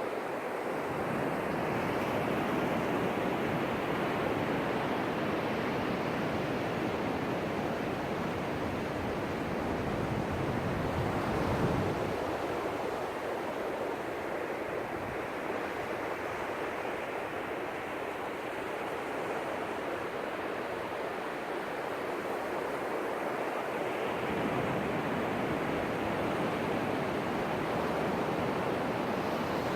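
Ocean surf washing onto a beach: a continuous rush of waves that swells to a louder break about twelve seconds in and builds again a little past the middle.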